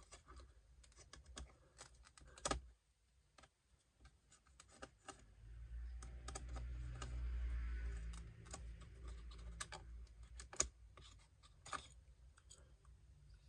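Scattered small clicks and taps of a screwdriver and laptop components being handled, with a low rumble of handling noise swelling in the middle.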